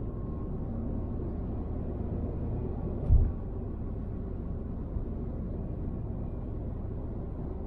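Steady rumble of a car driving on a motorway: road and engine noise. One low thump comes about three seconds in.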